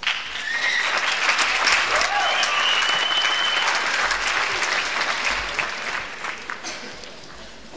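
Auditorium audience applauding, a dense patter of many hands clapping with a few voices calling out; it starts suddenly and dies away over the last two seconds.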